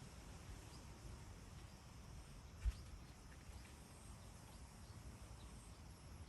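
Quiet outdoor ambience with a low steady rumble and faint high chirps, and a single sharp knock a little under halfway through.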